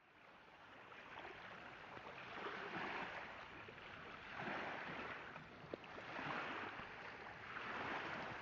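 Water washing and splashing in swells about every one and a half to two seconds, fading in at the start.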